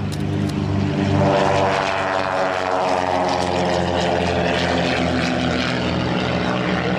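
Twin-engine propeller drone of a Britten-Norman Islander flying low past at power. It is loudest about a second in, then drops steadily in pitch as the aircraft goes by and climbs away.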